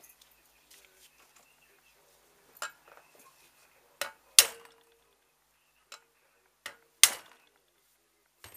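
Metal objects clinking and knocking together: a string of sharp clinks, the two loudest each followed by a brief ringing tone.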